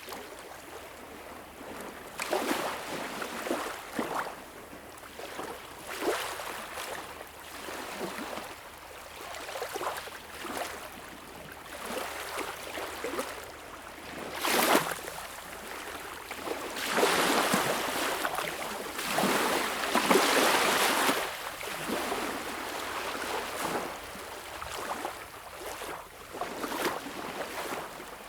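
Small, calm waves lapping and washing on a beach shore, a hiss that swells and ebbs every couple of seconds, with a sharper splash about halfway through and a longer, louder wash of surf a few seconds later.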